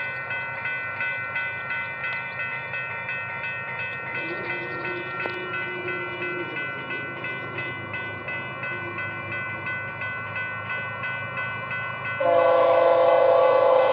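An approaching Union Pacific freight locomotive's air horn: a steady high, many-toned ringing that pulses about twice a second, and about twelve seconds in the horn sounds much louder and lower, as a full chord, as the train draws near.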